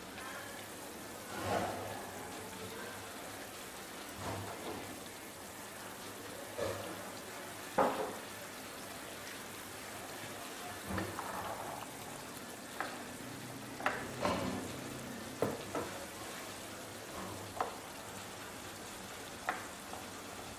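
Thick red curry sauce simmering and sizzling in a frying pan, with a steady hiss. Irregular knocks and scrapes of a stirring utensil against the pan and the chicken pieces come every second or two.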